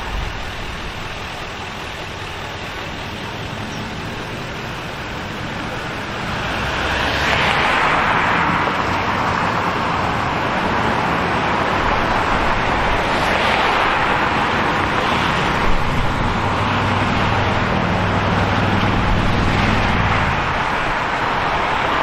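City street traffic: a steady background of road noise, with several cars passing one after another from about seven seconds in, their tyre noise swelling and fading. A lower engine hum joins for a few seconds near the end.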